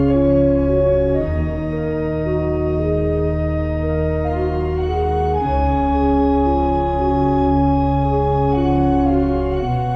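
Background music of slow, sustained chords over a deep bass note that changes every four seconds or so.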